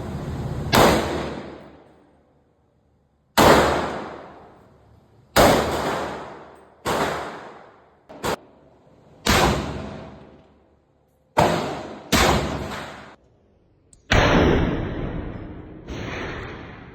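Gun shots fired one at a time at a range, about ten in all, spaced one to two and a half seconds apart, each followed by about a second of echo.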